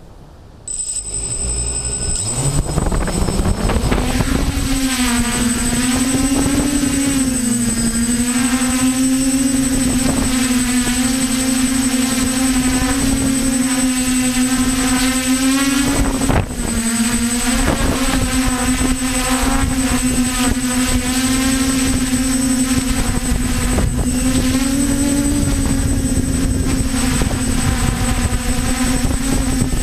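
DJI F450 quadcopter's electric motors and propellers spooling up about two seconds in, then holding a steady hum whose pitch wavers up and down as the motors work against the wind. A thin high whine starts just before the spool-up, and wind rumbles on the microphone throughout.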